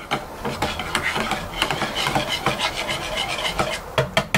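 Wire whisk beating a wet mix of mayonnaise and eggs in a small bowl: rapid clicking and scraping strokes of the wires against the bowl.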